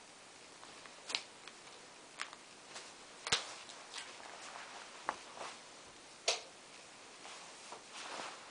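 Scattered sharp clicks and taps at irregular intervals over faint room hiss, two of them louder than the rest.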